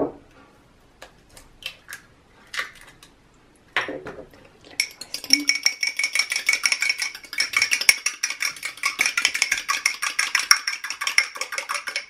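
Fork beating an egg in a small china bowl: fast, regular clinking of metal against the bowl, starting about five seconds in. Before that come a few light taps and a knock as the egg is cracked.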